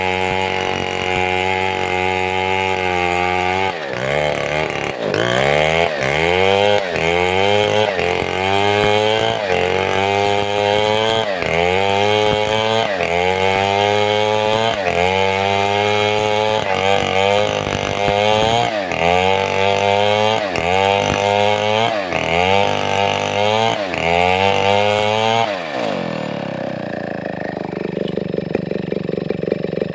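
Large two-stroke chainsaw of the Stihl 070 type running at high revs. After about four seconds its pitch starts sagging and climbing back again and again, roughly every second and a bit. Near the end it falls away to a lower idle.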